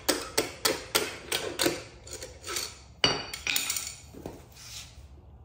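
Hammer tapping the end of a long steel screwdriver used as a drift to drive a motorbike's swing arm pivot bolt out: sharp metal strikes about three a second that grow fainter. About three seconds in comes a louder ringing metal clink, followed by a few lighter clinks.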